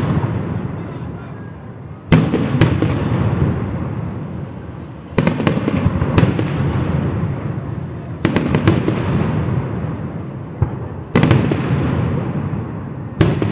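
Aerial fireworks shells bursting in small clusters of sharp bangs about every three seconds, each cluster followed by a long rolling rumble that fades away.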